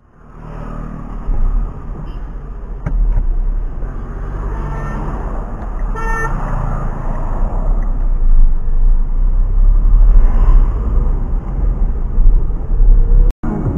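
Driving noise inside the cabin of a Renault Kwid RXT 0.8: its 0.8-litre three-cylinder engine and tyre and road noise over a heavy low rumble, fading in at the start. About six seconds in a car horn gives one short toot, and the sound drops out briefly near the end.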